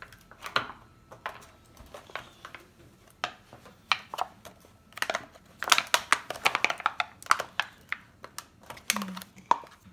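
Fingers poking and tapping at the toy's plastic and paper packaging, making a run of irregular clicks and crinkles that grows busier about halfway through.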